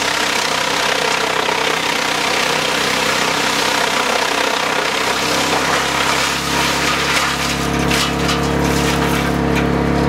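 Farmi CH260 HFC disc wood chipper chipping sawmill slabs: a dense crackle of wood being cut and thrown, over the steady hum of the running drive. About seven seconds in, the chipping dies away as the infeed runs empty, and the machine runs on with a steadier hum and a few sharp cracks of wood.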